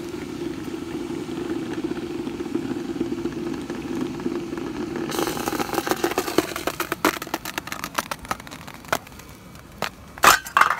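Hot cast aluminum ingots in a metal muffin tin quenched in a bucket of water: a steady low boiling rumble, then about five seconds in a sharp hissing, crackling sizzle that fades over a couple of seconds. Near the end come a few sharp metallic knocks, the loudest as the tin is set down.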